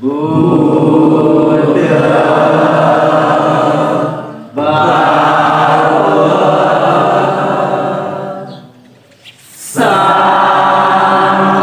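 Voices chanting a Hindu devotional song with long held notes, in three phrases broken by a short pause about four and a half seconds in and a longer pause near the end.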